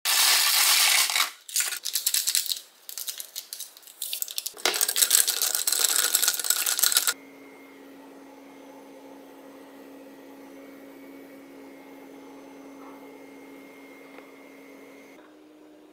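Loud crackling and rattling in stops and starts for about seven seconds, like busy kitchen handling noise close to the microphone. It then cuts off suddenly to quiet room tone with a faint steady hum.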